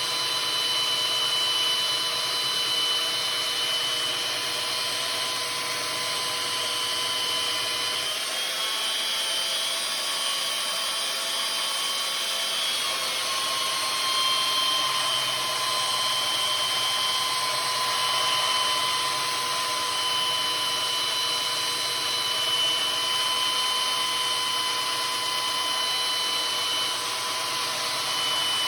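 A power tool grinding steel to sharpen the edge of a splitting maul: a steady grinding hiss with a whine over it. The pitch shifts about 8 seconds in and again a few seconds later, as the load on the tool changes.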